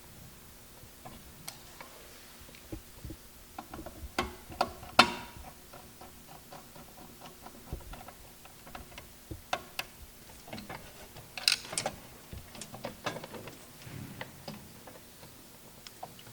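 Irregular small clicks and taps of hand tools and wires being handled while wires are connected at a control panel's terminals. A sharp click about five seconds in is the loudest.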